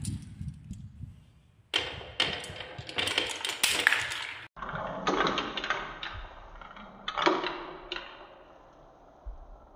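Glass marbles rolling and clattering down a wooden marble run, a rapid stream of clicks and knocks as they hit the wooden track and each other. The clicking grows thick a little under two seconds in, breaks off sharply midway, resumes, and thins out near the end.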